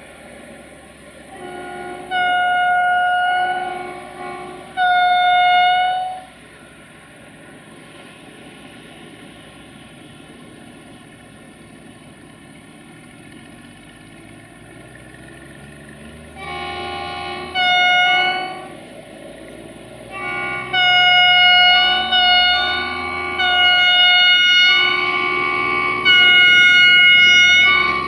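Multi-tone air horn of diesel locomotive 64-1125-5: two loud blasts in the first six seconds, then after a pause a rapid string of short and long blasts, the chord changing between notes. The locomotive's engine rumble grows louder over the second half as it approaches.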